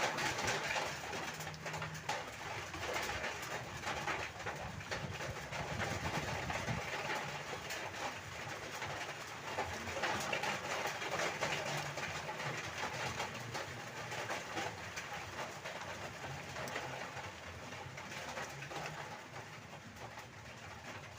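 Heavy rain falling steadily, with gusts of wind rumbling on the microphone; it eases slightly near the end.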